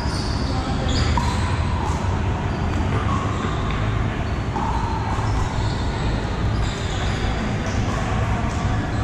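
Pickleball paddles striking the hard plastic ball and the ball bouncing on the floor, sharp pocks scattered irregularly from this court and neighbouring ones, over a steady low hum in a large hall.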